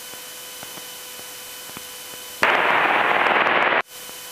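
Aircraft radio and intercom feed: a steady faint hiss with a thin hum and a few light clicks, then about two and a half seconds in a loud burst of radio static that lasts about a second and a half and cuts off abruptly.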